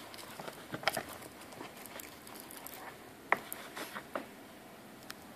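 Handling noise: scattered light clicks and rustles as a multicore cable and its stripped wires are handled, with one sharper click a little past the middle.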